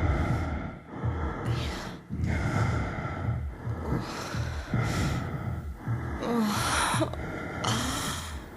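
A person's heavy gasping breaths repeating about once a second, with a short wavering voiced sound about two-thirds of the way through.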